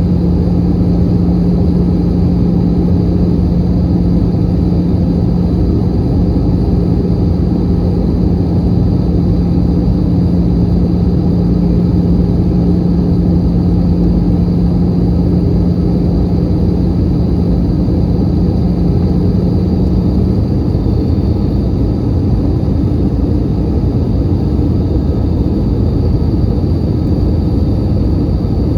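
Airbus A320 cabin noise in flight: steady jet engine and airflow rush, with a low steady hum that stops about two-thirds of the way through.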